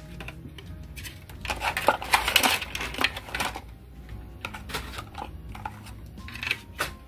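Clicks and knocks of a gel polish bottle being handled and set down on the desk, long artificial nails tapping against it, with a busier run of handling noise from about a second and a half to three and a half seconds in. Background music plays underneath.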